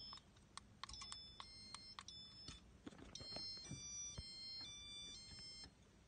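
Button clicks on a Casablanca ceiling-fan wall control, with short high electronic beeps answering the presses. About three seconds in comes a longer run of beeps at several pitches, lasting over two seconds, over a faint low hum.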